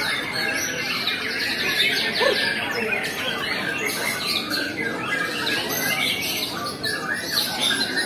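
Many caged competition songbirds singing at once: a dense, unbroken tangle of overlapping chirps, whistles and trills.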